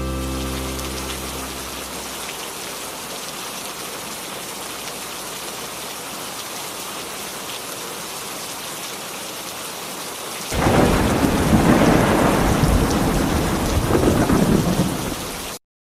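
Steady rain falling, then about ten seconds in a loud clap of thunder that rolls on over the rain for about five seconds and cuts off suddenly. It is a rain-and-thunder sound effect closing a recorded song.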